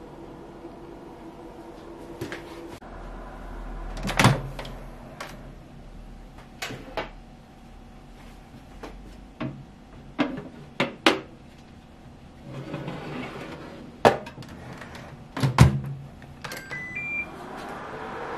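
Glass loaf dish and oven tray knocking and clacking as they are slid into a countertop oven and the door is shut. Then the oven's control panel gives three short beeps rising in pitch, and its fan starts humming near the end.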